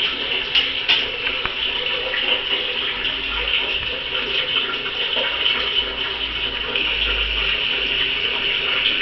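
Toilet flushing: a steady, loud rush of water running on without a break, with two light clicks within the first second.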